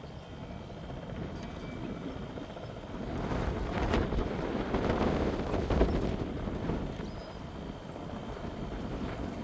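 Helicopter flying toward the listener, its rotor and engine noise swelling to a peak about five to six seconds in and then easing off.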